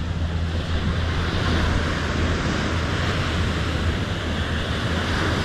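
Steady wash of ocean surf with wind rumbling on the microphone, over a steady low hum.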